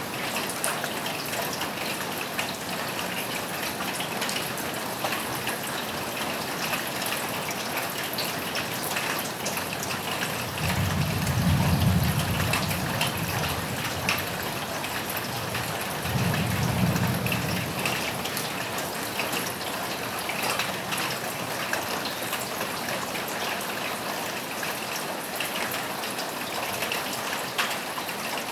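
Steady rain falling on a roof, with two low rumbles of thunder about eleven and sixteen seconds in, the second shorter.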